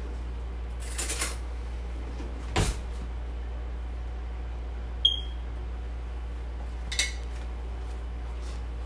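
Cookware handled in the kitchen: a few separate knocks and clicks of pots and utensils, one with a brief metallic ring about five seconds in, over a steady low hum.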